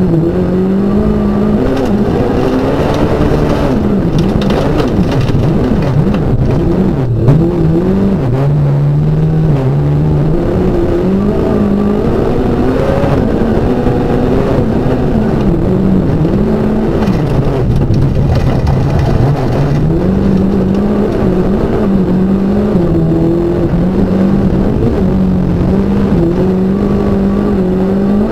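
Rally car engine heard from inside the cockpit, revving hard with its pitch climbing and dropping as the driver shifts up and down through the gears between corners. A brief knock about seven seconds in.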